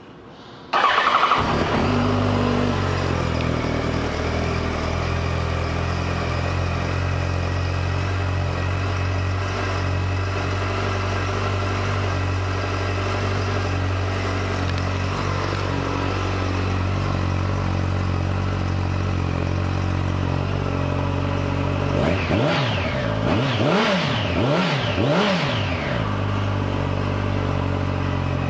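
2006 Yamaha FZ1's 998 cc inline-four engine starting up about a second in and idling steadily. A little over twenty seconds in, the throttle is blipped several times, the revs rising and falling quickly, before it settles back to idle.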